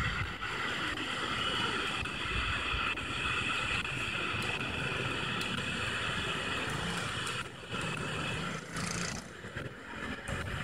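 Static hiss from a Grundig G2 Reporter portable radio's speaker as it is tuned up through empty FM frequencies. The hiss is steady, then dips and breaks up near the end as the tuning changes.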